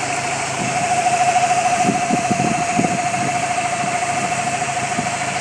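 Dodge SRT-4's turbocharged 2.4-litre four-cylinder engine running, with a steady high whine over a fast pulsing, loudest in the first few seconds. The whine is the unexplained strange noise being troubleshot.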